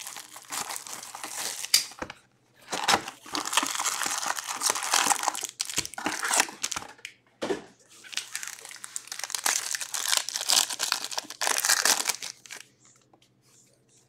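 Hockey card packaging being ripped open by hand: plastic wrapping crinkling and tearing in several stretches with short pauses, stopping shortly before the end.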